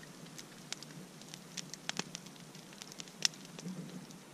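Siberian log fire crackling, with scattered sharp pops over a faint hiss. The loudest pop comes a little over three seconds in.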